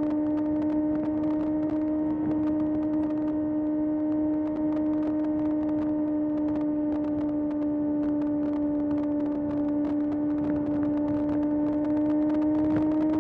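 Kawasaki ZX-6R's inline-four engine running at steady high revs under way, a single sustained note that climbs slightly near the end.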